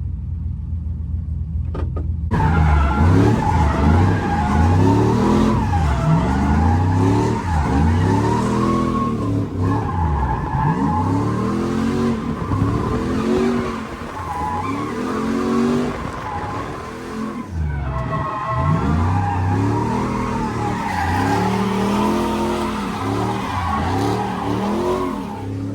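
Drift car's engine revving hard and falling back over and over, with tyres squealing, heard from inside the car on a drift run. It gets much louder about two seconds in.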